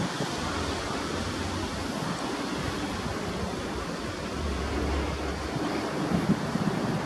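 Wind buffeting the microphone in a steady rush, over the low rumble of a distant freight train's container wagons rolling past.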